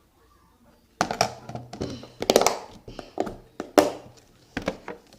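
Plastic slime containers and their lids being handled: a run of sharp clicks and knocks, densest about two seconds in, after a moment of quiet.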